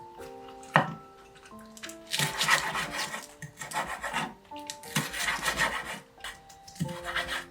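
Four rasping, rubbing strokes, each about a second long with short pauses between, over soft background music of held notes.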